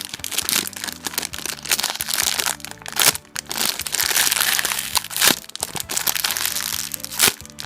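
Plastic packaging crinkling and crackling as it is handled, with several sharp crackles, over quiet background music.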